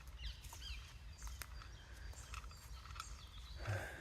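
Small birds chirping faintly in short quick calls, then a crow starts cawing near the end, over a low outdoor rumble.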